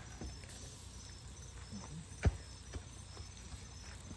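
Crickets chirping in short repeated trills, with a few faint clicks and one sharp knock a little past halfway.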